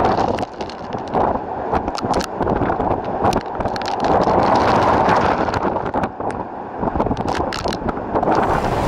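Tropical Cyclone Debbie's wind blowing across the microphone in gusts, swelling to its strongest about halfway through and easing near the end. Wind-driven rain taps in sharp ticks against the camera throughout.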